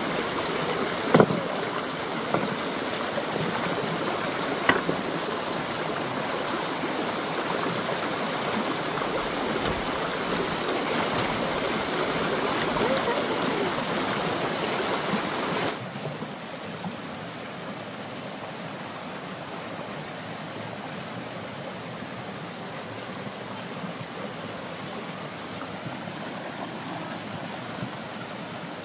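Steady rush of running water, with a couple of short knocks in the first few seconds. About halfway through it drops suddenly to a quieter, still steady rush.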